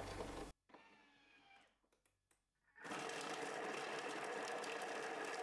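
Thermomix TM6 food processor chopping halved onions, garlic and celeriac at speed 5: its blade and motor run with a steady whirr that starts about three seconds in and lasts roughly three seconds.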